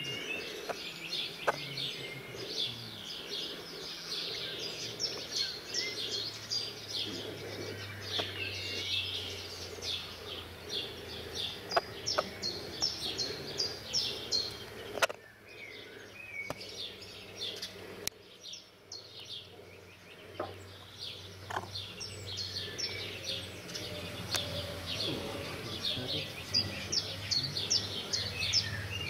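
Many small birds chirping and singing at once, a dense chorus of short high calls that thins for a few seconds about halfway through. A steady low hum runs underneath, and a few sharp clicks stand out above the chorus.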